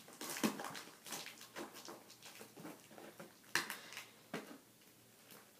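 A key scratching and slitting through packing tape on a cardboard box, with crackling tape, brief tearing strokes and a few sharp taps.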